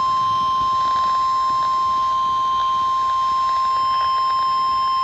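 NOAA Weather Radio 1050 Hz warning alarm tone: one steady, loud single-pitch tone over a hiss of radio static.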